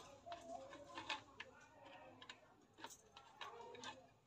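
Faint, irregular small clicks and taps of wires and switch terminals being handled as a household switch board is wired.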